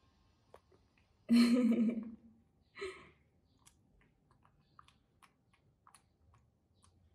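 Faint, scattered clicks and small smacking sounds as a baby macaque picks through a woman's hair, grooming her. About a second in comes a louder voice-like sound lasting about a second, and a shorter one just before three seconds.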